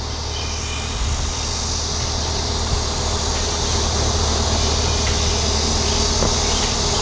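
Fishing boat engine running steadily, with a low hum and a broad mechanical noise that slowly grows louder. It is being run so it can be checked for an unusual noise.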